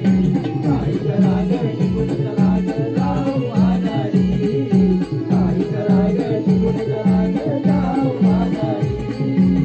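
Marathi naman folk song: a singer's voice over mridang drumming, with metal percussion keeping a steady, even beat.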